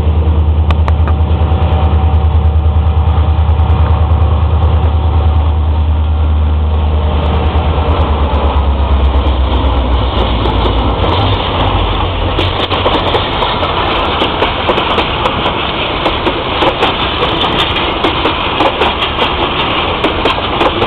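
Freight train passing close by. A deep, steady diesel locomotive engine drone fills the first half. After about ten to twelve seconds it gives way to the rattle of the freight cars' wheels on the rails, with many sharp clicks over the joints.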